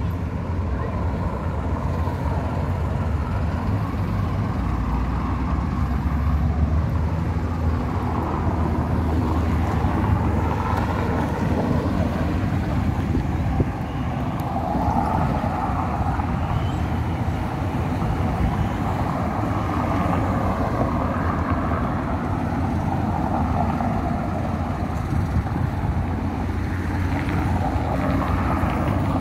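Steady outdoor city-street ambience: a continuous low rumble with road traffic in it.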